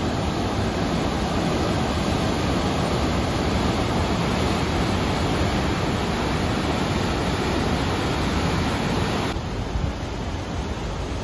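Steady rushing roar of the Athabasca River pouring through the gorge at Athabasca Falls, a little quieter from about nine seconds in.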